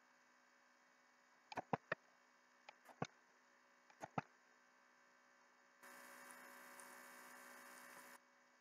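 Computer mouse clicking about six times, singly and in quick pairs, over a low steady electrical hum. A steady hiss comes in for about two seconds near the end.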